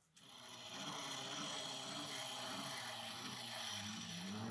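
Restored hand-cranked knife sharpener: the crank-driven grinding wheel spins up and a steel knife blade is ground against the stone, giving a steady grinding hiss. Under it a low gear whine rises and falls roughly once a second as the handle is turned.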